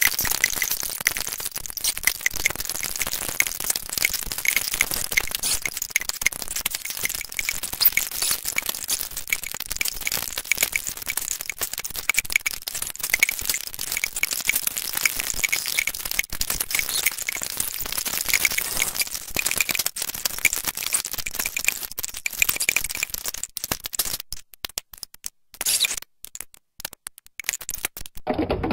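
Electronic crackling texture from a Kyma chaotic-system patch: a dense stream of rapid clicks, mostly high-pitched, that thins out into sparse clicks with short silences in the last few seconds.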